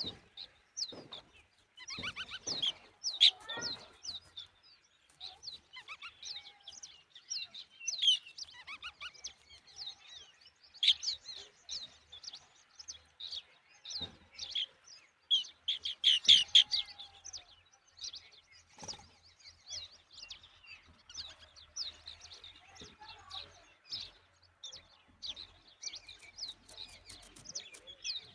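Birds chirping and calling: a busy run of short, high chirps, with louder flurries now and then.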